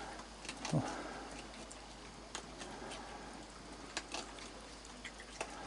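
Baby raccoons eating grapes: faint, scattered small clicks and taps of chewing and handling food, with one brief low sound just under a second in.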